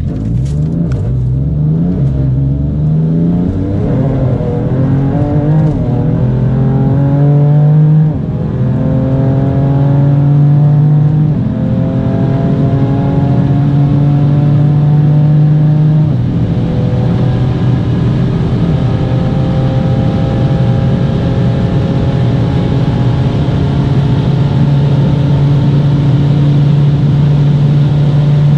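BMW F80 M3's S55 twin-turbo straight-six, running Mosselman hybrid turbos, at full throttle on a top-speed run. It climbs through the gears with quick upshifts in the first few seconds, then longer pulls about 8 and 12 seconds in. From about 16 seconds in it holds one long, slowly rising pull in top gear at very high speed.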